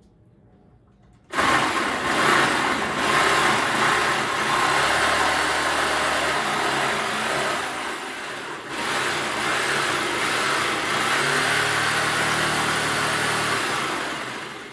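Electric jigsaw cutting through 3/4-inch marine plywood. It starts suddenly about a second in, runs steadily with a brief dip partway through, and stops near the end.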